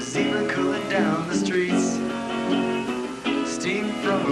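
Live band music led by guitar, chords changing about every half second with sharp picked or strummed attacks, recorded on an old VHS tape.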